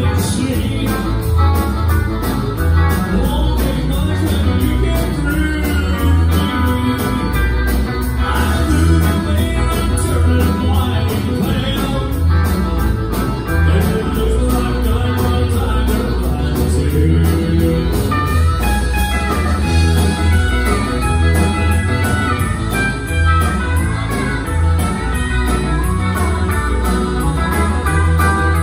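Live country band playing with a steady beat: drum kit, guitar, keyboards and accordion.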